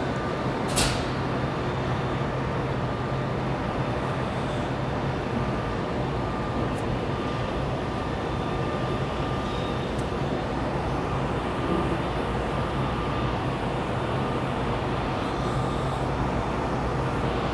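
Steady mechanical hum and rushing noise, with one sharp click about a second in.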